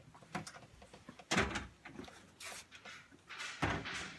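Scattered knocks and bumps of hands and fittings being worked under a kitchen sink, with two heavier thuds, one about a third of the way in and one near the end.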